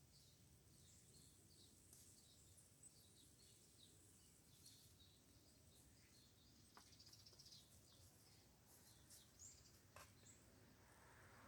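Near silence with faint birdsong: scattered short chirps throughout, and two faint clicks partway through.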